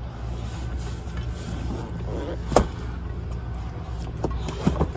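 Steady low rumble of a moving car heard from inside the cabin: engine and road noise. There is one sharp click about halfway through.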